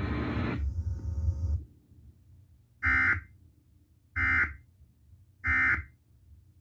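Emergency Alert System end-of-message data signal: three identical short, shrill, warbling digital bursts a little over a second apart, marking the end of the alert. Before them, the tail of the broadcast's hum and hiss fades out.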